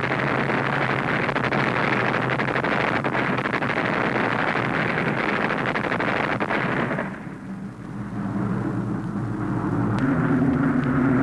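Warplane engine drone under a dense crackle of gunfire and explosions for about seven seconds. The din then dips, and a steady aero-engine drone builds toward the end.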